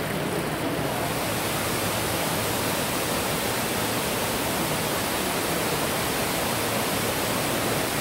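Artificial waterfall cascading over a rock wall into a pool: a steady rush of falling water that grows hissier about a second in.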